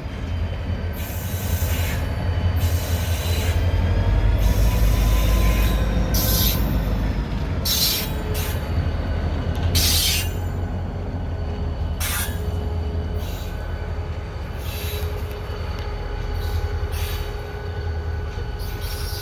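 Freight train of covered hopper cars rolling past behind Wheeling & Lake Erie EMD GP35 diesel locomotives: a steady low rumble, with steel wheels squealing in sharp high bursts that come and go every second or two.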